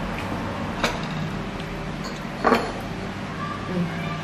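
Two light clinks of metal spoons and forks against ceramic plates, one about a second in and a louder, ringing one about halfway through, over a steady low hum.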